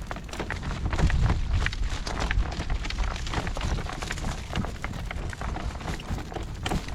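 Gusty wind buffeting the microphone in a heavy low rumble, with irregular clicks and knocks from the horse's hoofbeats and the rattling of the cart it is pulling.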